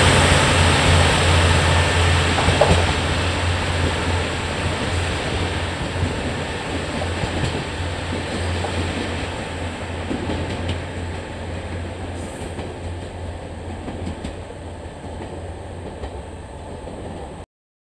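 KiHa 40 series diesel railcar pulling away, its diesel engine running with a steady low hum over the noise of the wheels on the rails, fading gradually as it recedes. The sound cuts off abruptly near the end.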